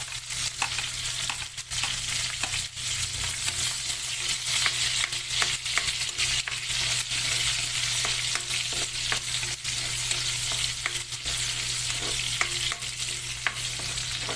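Garlic and onion sautéing in hot oil: a steady sizzle, with many short clicks and scrapes of a utensil stirring them in the pan.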